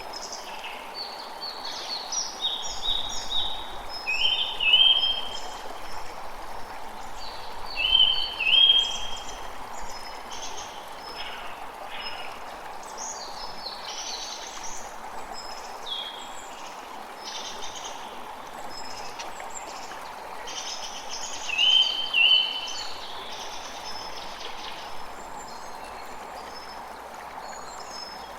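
Running water rushing steadily, with birds chirping over it in quick runs of short notes; the calls come loudest in three clusters, about five seconds in, at eight to nine seconds, and around twenty-two seconds.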